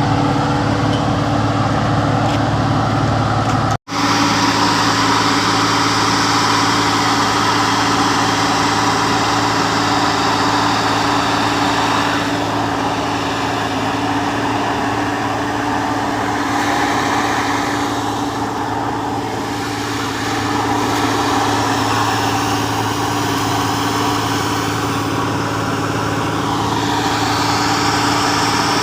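Engines of road-paving construction machinery running steadily, with a brief cut to silence about four seconds in and a few slow rises and falls in pitch later on.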